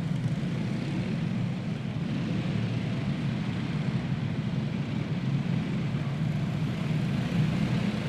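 A field of dirt karts with single-cylinder Predator engines running steadily at caution pace, getting a little louder near the end.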